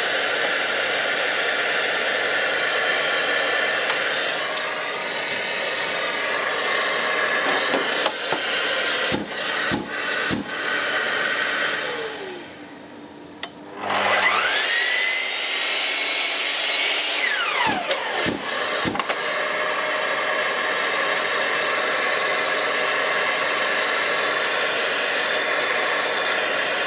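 Steady hiss of a workshop dust extractor, which drops out briefly near the middle. Then a Bosch sliding mitre saw's motor whines up to speed, runs for about three seconds while cutting timber to length, and winds down. A few wooden knocks of the board being handled on the saw come before and after the cut.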